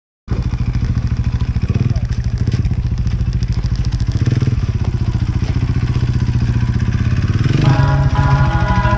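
Dirt bike engine running with a steady, rapid pulse. Near the end, music with sustained notes comes in over it.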